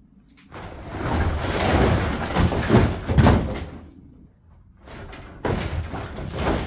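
An old floor being broken up: rubble and broken flooring scrape and crash down in a long rumbling rush with two heavier knocks midway, then a second burst of scraping and knocks after a short pause.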